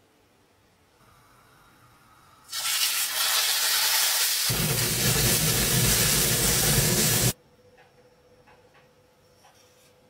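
Ground-beef patty sizzling in a frying pan: a loud, even sizzle starts suddenly, turns deeper and fuller partway through, and cuts off abruptly.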